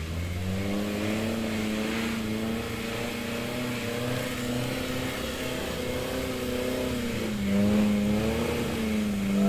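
Off-road 4x4's engine revving hard under load. Its pitch climbs in the first half second, holds high with a slight wavering, dips briefly near the end, then rises again and gets louder.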